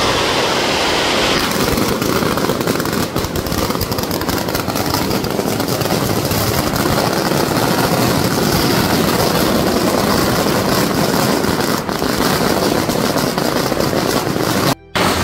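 A very long string of red firecrackers going off in one continuous, rapid crackle of bangs, breaking off for a moment near the end.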